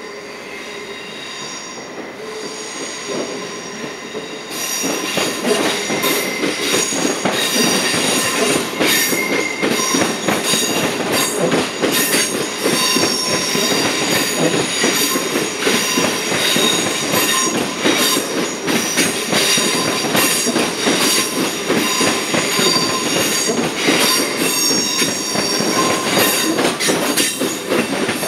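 SBB double-deck electric passenger train rolling past, its wheels squealing in several steady high tones and clattering over rail joints and points. It grows suddenly louder about four seconds in as the cars come alongside, then keeps a steady mix of squeal and rapid clicks.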